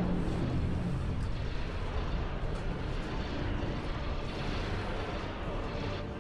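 Space-battle sound effects from an animated TV episode: a continuous low rumble of explosions and starship engines.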